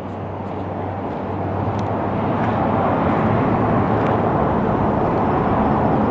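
Freeway traffic: a steady rush of tyres and engines with a low hum underneath. It swells over the first few seconds and then holds loud and even.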